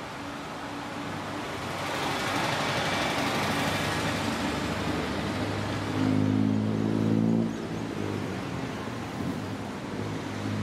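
Street traffic going by: cars and taxis passing with a rushing swell of tyre and engine noise. About six seconds in, a tuk-tuk passes close, its small engine giving a steady pitched note that is the loudest moment and fades after a second or two.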